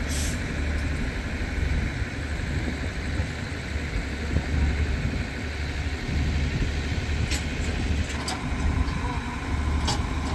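Steady low drone of a standing passenger train's diesel engine idling, with a few sharp clicks in the last few seconds.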